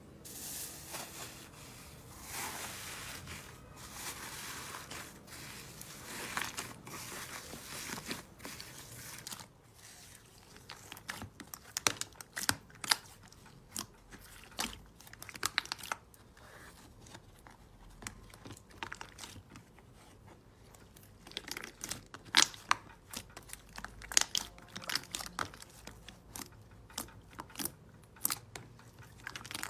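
Slime being squished and worked by hand: soft sticky squelching at first, then from about ten seconds in a run of short sharp clicks and pops as the slime is pressed and pulled.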